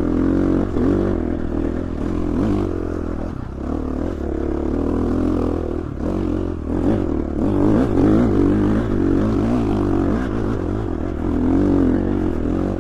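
Dirt bike engine running under a rider on a trail, its revs rising and falling continuously as the throttle is worked.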